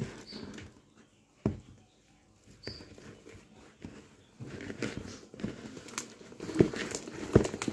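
Slime being kneaded and stretched by hand as slime gel is worked in: small sticky crackling and clicking noises that get busier about halfway through, after a couple of sharp knocks early on.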